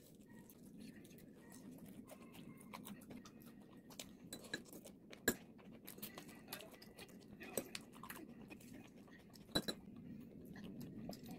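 Close-up eating sounds: bites and chewing of crispy fried chicken and noodles, with many scattered sharp clicks of metal chopsticks and tableware, the loudest about five, seven and a half, and nine and a half seconds in.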